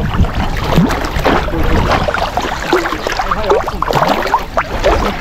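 Water sloshing and splashing as people wade and move through a lagoon channel, with scattered short wavering sounds mixed in.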